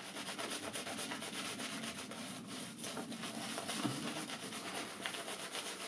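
Semogue 830 boar-bristle shaving brush scrubbing shaving cream into a lather on a few days' stubble, a continuous run of quick rubbing strokes.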